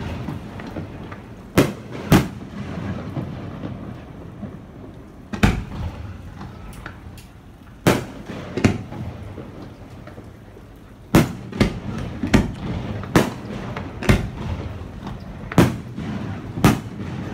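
Aerial fireworks booming: about a dozen sharp bangs at irregular intervals, some in quick pairs, over a continuous low rumble.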